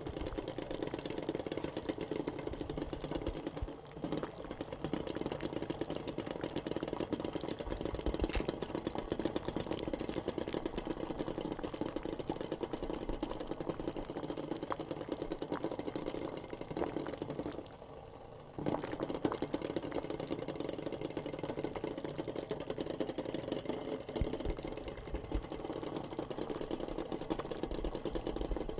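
Eggs boiling in a pot: a fast, steady rattling and bubbling clatter that goes on throughout, with a brief quieter dip about eighteen seconds in.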